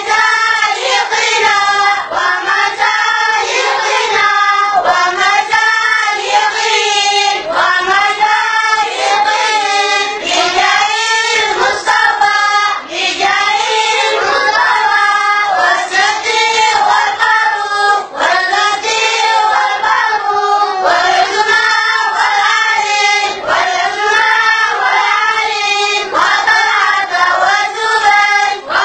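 A group of boys singing together in one continuous melodic line, phrase after phrase with no pauses.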